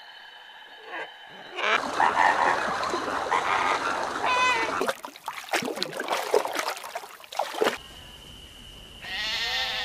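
Flamingos calling and splashing in shallow water, with a short call near the middle. A sheep bleats once near the end.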